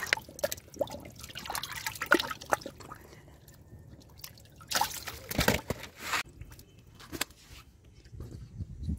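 Splashing and dripping in shallow muddy water as a hand grabs catfish. The splashes come irregularly, with the loudest around the middle.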